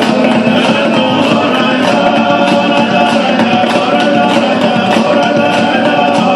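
Loud dance music with singing and a steady, regular beat, accompanying a stage folk-dance performance.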